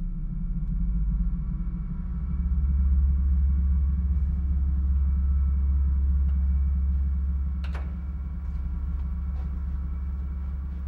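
Low, steady rumbling drone of the film's sound design, swelling about two seconds in, with faint held tones above it and a single sharp click about three-quarters of the way through.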